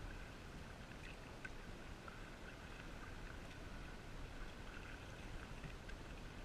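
Faint water noise from a small paddled boat on a loch, under a steady low rumble.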